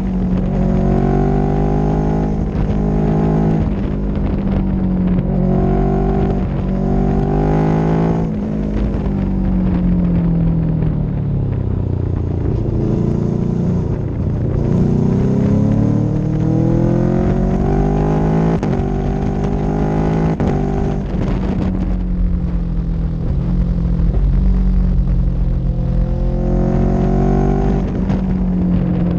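Onboard sound of a road vehicle's engine driving along a winding road. The engine note holds fairly steady at first, drops away from about 8 seconds in as the vehicle slows, then climbs again with acceleration from about 14 seconds and once more near the end.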